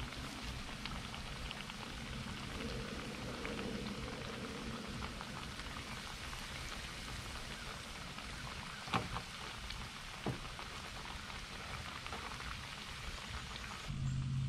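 White bass fillets and roe frying in hot oil, with a steady crackling sizzle and two sharper pops about 9 and 10 seconds in.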